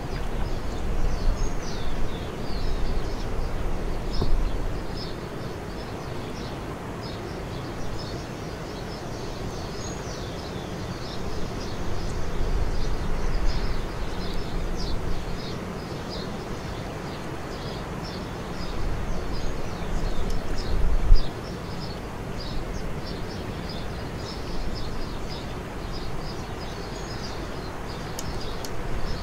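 Outdoor ambience: many small birds chirping in quick, high twitters throughout, over a low, uneven rumble that swells and fades. A single dull bump comes about two-thirds of the way through.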